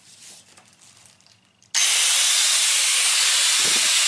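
Brand-new Doliz BA730 4-inch electric angle grinder (720 W, rated 12,000 rpm), no disc fitted, switched on about halfway through for a first test run. It starts suddenly and runs steadily at full speed with a rushing noise without a clear pitch; before that, light handling of the tool.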